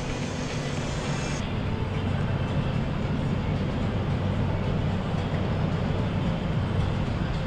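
Boat engines running with a steady low drone over a wide rush of noise.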